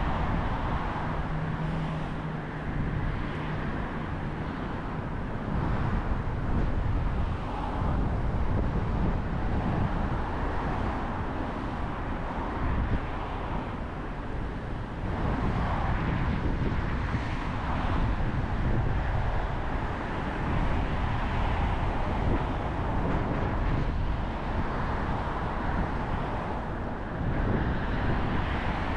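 Road noise from a car driving on city streets: a steady rumble of tyres and traffic that swells and fades every few seconds.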